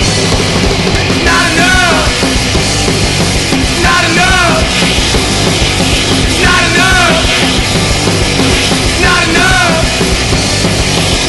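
Loud punk rock song played by a full band, with a short phrase that bends in pitch and comes back about every two and a half seconds.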